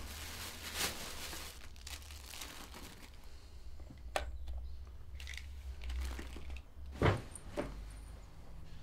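Rustling and crinkling with a few sharp knocks, the loudest about seven seconds in, over a low steady hum.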